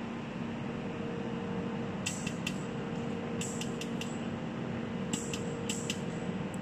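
Pulsed jewelry laser welder firing spot pulses onto a metal sample plate: about a dozen sharp ticks in small groups, starting about two seconds in, over the machine's steady hum.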